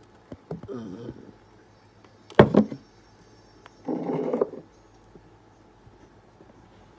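A sharp knock about two and a half seconds in, the loudest sound, among quieter tapping and handling noises, with a short rough sound about four seconds in.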